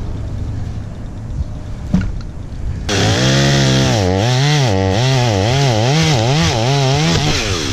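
Chainsaw idling, then throttled up about three seconds in and run at full speed, its pitch rising and falling about once a second as it works in the wood, before dropping back near the end.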